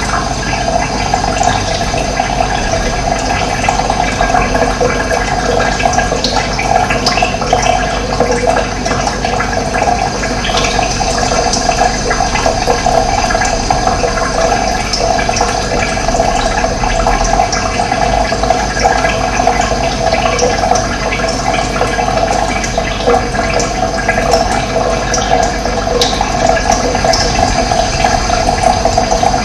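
Running water flowing steadily, a continuous splashing with no breaks.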